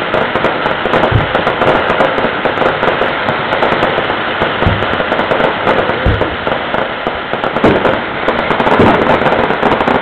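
Fireworks going off: a dense, continuous crackling with about five deep booms of shells bursting spread through it.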